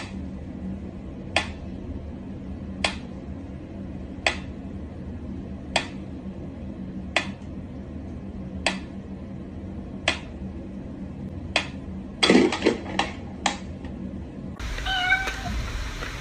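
Pendulum metronome ticking slowly, one sharp tick about every one and a half seconds. About twelve seconds in the ticking gives way to a short burst of louder clatter with a cat's cry, and a different, denser noise with faint steady tones takes over near the end.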